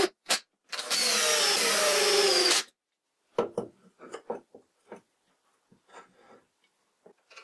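Cordless drill/driver driving a screw into wood: two short trigger bursts, then one continuous run of nearly two seconds. This is followed by scattered light knocks and clunks as the electric motor is handled and set down on the wooden frame.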